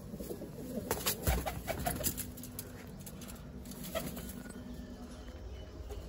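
Domestic pigeons cooing in their coop, with a few sharp knocks and rustles a second or two in.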